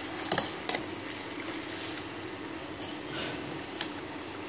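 Metal tongs clicking and clinking against a frying pan and a stainless saucepan as chicken pieces are lifted into hot oil. The clinks come in a quick cluster within the first second and again a few more past the three-second mark, over a steady hiss of oil frying.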